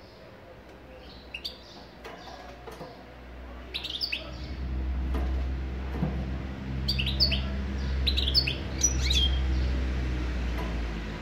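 European goldfinch giving short, sharp twittering chirps: a few about four seconds in, then a denser run from about seven to nine seconds in. Under them runs a low steady hum that swells from about three seconds in and dies away near the end.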